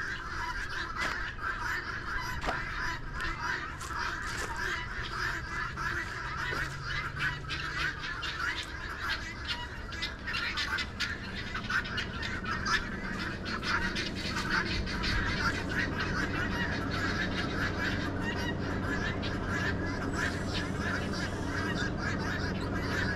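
A flock of farmyard fowl calling loudly and without a break, a dense chorus of harsh, rapid calls. They are agitated because one of their flock is stranded on the other side of a fence.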